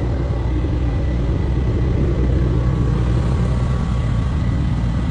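A steady low rumble of running machinery, with a faint steady whine above it.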